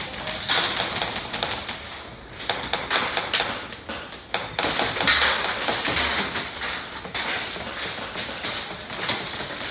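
Airsoft guns firing: many quick, sharp clicks and snaps at an irregular pace.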